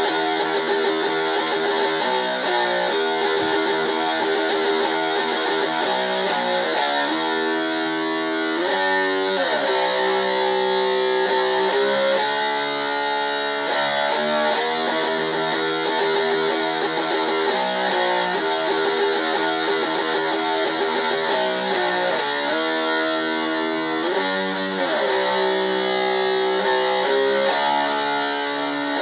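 Solo guitar music: held notes and chords, with the notes sliding in pitch down and up a few times.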